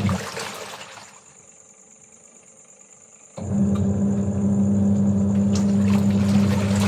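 A steady low electric motor hum stops, leaves a gap of about two seconds, then starts again suddenly, typical of a washing machine or water pump cycling. Under it runs a steady high-pitched drone of evening insects.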